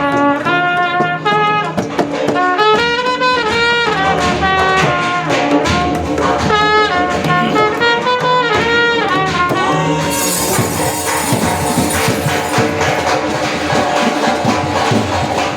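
Sanai-chaughada band: a shehnai playing an ornamented melody with sliding notes over chaughada drumming. About ten seconds in the shehnai line fades and the drumming takes over, denser and brighter.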